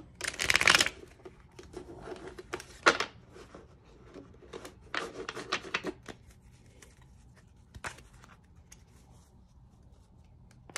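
A deck of tarot cards being shuffled and handled: a few short spells of papery card noise, the loudest near the start, then quieter rustles around two to three and five to six seconds in.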